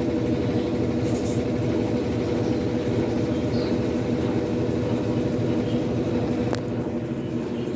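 Washing machine running with a steady hum and fast low pulsing, the strange noise from underneath the motor that the owner puts down to the load having gone badly out of balance. A single sharp click about six and a half seconds in.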